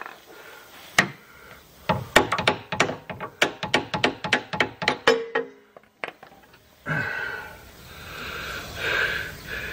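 A quick run of sharp metal knocks, about five a second for some three seconds, ending in a short metallic ring, as the old lower control arm is tapped and worked free of the hub.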